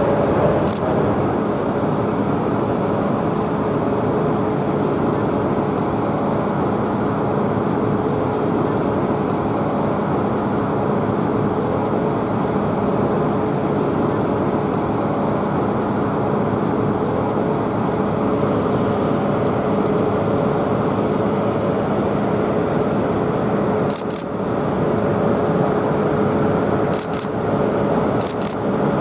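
Steady jet engine noise from a Boeing 787-9 Dreamliner flying a display pass, with a few sharp clicks near the end.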